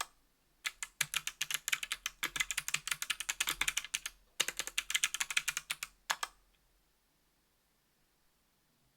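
Fast typing on a 60% aluminium keyboard with Kailh BOX Crystal Jade clicky switches, an aluminium plate and GMK keycaps: a rapid stream of crisp clicks in two runs, the typing stopping about two-thirds of the way through.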